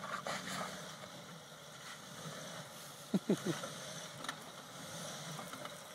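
Range Rover's engine running faintly at low speed as the vehicle crawls over rocks, with a few short squeaks about three seconds in.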